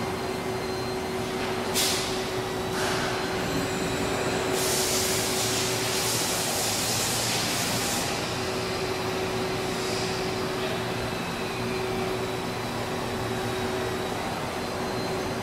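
Machinery running with a steady hum and a constant tone, broken by hisses of air: two short ones about two and three seconds in, a long loud one of about three and a half seconds starting near four and a half seconds, and a fainter one around ten seconds.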